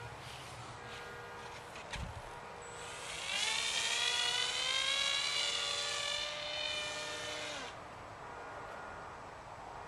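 Electric motor and propeller of an RC glider whining under power: an in-runner brushless motor, rising a little in pitch for about five seconds from about three seconds in, then cut off abruptly.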